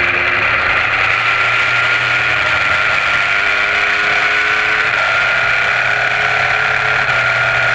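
Track motorcycle's engine running at speed, heard through a camera mounted on the bike. The engine note holds fairly steady, with small shifts in pitch.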